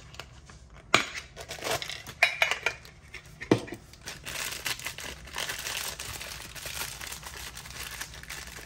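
A few sharp metal clicks and clinks from a Funko Soda tin can's pull-ring lid being opened, then steady crinkling of the thin black plastic bag and bubble wrap around the figure inside, from about four seconds in.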